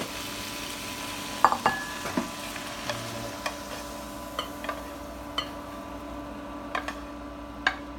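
Oil sizzling in a hot non-stick frying pan, thinning out, as a wooden spatula scrapes stir-fried vegetables out onto a plate. A louder clink comes about one and a half seconds in, then scattered light clicks and knocks of pan, spatula and dishes, over a steady hum.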